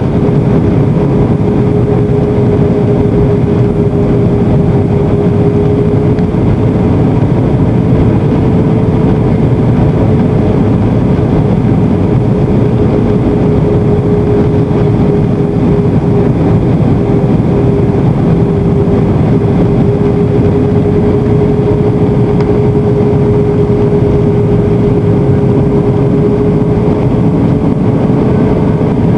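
Airbus A320 cabin noise heard from a window seat: a steady rumble of jet engines and rushing air, with a steady droning tone running through it.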